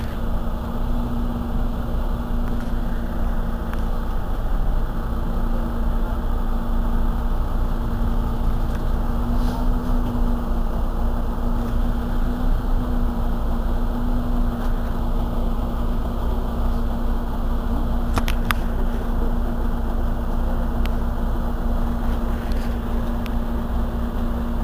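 Mercedes-Benz Citaro C2 city bus idling while stationary: a steady engine rumble with a constant hum over it.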